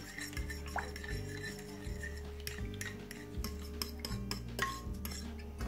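Metal spoon stirring a runny yogurt-and-egg sauce in a glass baking dish, with repeated clicks and scrapes against the glass, over soft background music.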